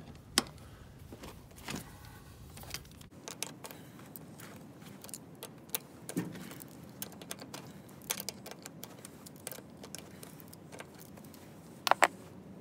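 Ratchet wrench clicking and steel clinking as the small flange bolts on a Land Rover Series 2A front hub are loosened and turned out. The clicks come in irregular bunches, with a louder double clink near the end.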